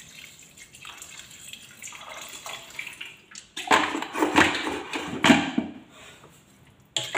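Water poured from a metal pot into a cooking pot of rice and lentils, trickling faintly at first, followed by a louder stretch of noise about three and a half seconds in and a sharp knock near the end.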